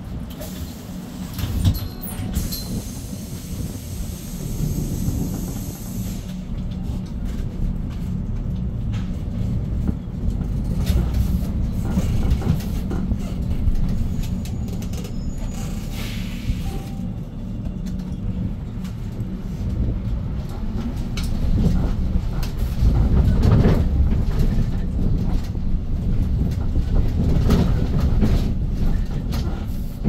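Cabin noise of a Hyundai New Super Aerocity city bus driving in traffic: the low rumble of its CNG engine, with road noise and short knocks and rattles. A hiss comes in the first few seconds, and the rumble grows louder in the last third.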